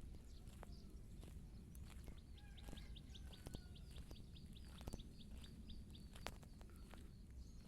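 Faint outdoor ambience in which a bird gives a quick series of short, high chirps, about four a second, through the middle of the stretch, with a few scattered faint clicks.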